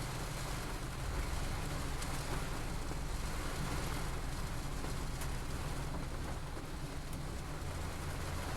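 Steady rainfall, an even hiss of drops, with a low rumble underneath.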